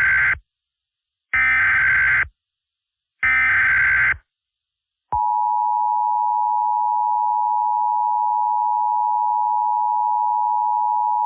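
Emergency Alert System broadcast tones: the SAME header's shrill data bursts, three in a row about a second apart, then the steady two-tone EAS attention signal (853 and 960 Hz together) starts about five seconds in and holds.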